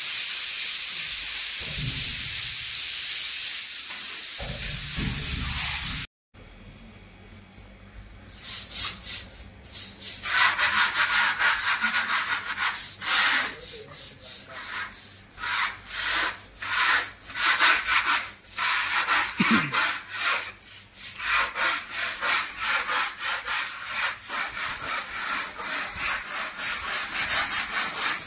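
Dried wall putty being sanded by hand with sandpaper: a steady scratchy hiss, then, after a short break about six seconds in, rapid back-and-forth rubbing strokes.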